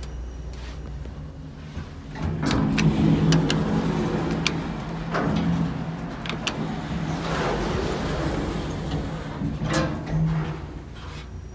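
Hitachi elevator car doors sliding, the door motor humming steadily with a series of sharp clunks and clicks, starting about two seconds in.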